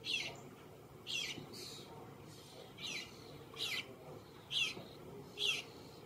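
Fledgling bluebird calling: short, high notes that slide downward, repeated roughly once a second, about six in all.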